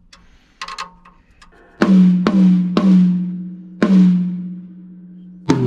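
Freshly headed DW tom struck four times, each hit ringing out on one sustained pitch while it is tuned toward about 202 Hz, then a single hit on a larger tom with a lower ring near the end as the next drum's pitch is checked.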